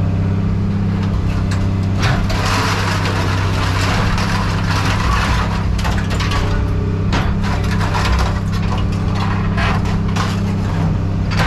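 A machine hums steadily under irregular clattering, crunching and cracking of scrap metal being handled and broken, which picks up about two seconds in.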